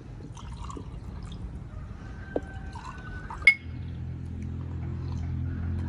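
Coconut water poured from a plastic jug into a drinking glass, then a single sharp, ringing clink of two glasses touched together about three and a half seconds in. A low steady hum follows the clink.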